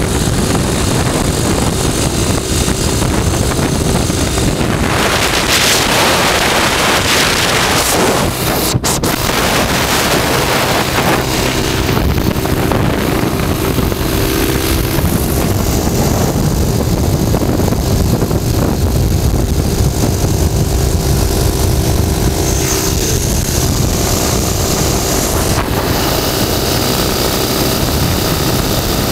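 Motorcycle engine running at road speed, with loud, steady wind noise on the microphone.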